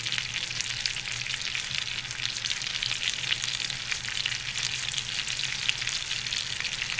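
Chicken breasts frying in butter and olive oil in a skillet over medium-high heat: a steady sizzle with a dense crackle of fine pops.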